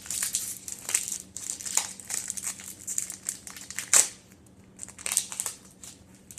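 Foil Pokémon booster pack wrapper crinkling and crackling as it is handled and opened by hand, in dense bursts with the loudest crackle about four seconds in, then sparser crinkles.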